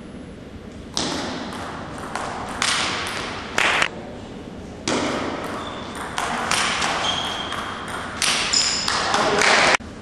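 Table tennis ball struck back and forth by bats and bouncing on the table in a rally: a string of sharp, irregularly spaced hits, each trailing off in the echo of a large sports hall.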